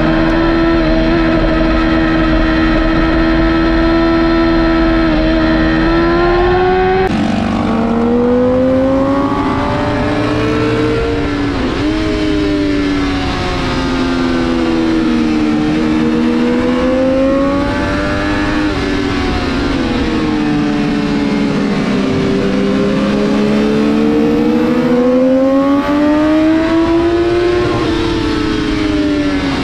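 Sport bike engine at track speed, recorded onboard with wind noise. It holds a steady pitch for the first several seconds, then after an abrupt change the revs rise and fall repeatedly through acceleration and corners.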